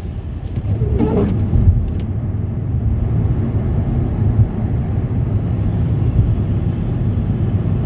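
Steady low rumble of car engine and tyre noise heard from inside the cabin while driving on a snow-covered highway.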